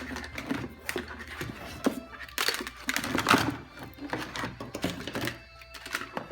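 Shoe trees clacking and knocking together as they are handled, a string of irregular clicks with a denser clatter about two and a half seconds in.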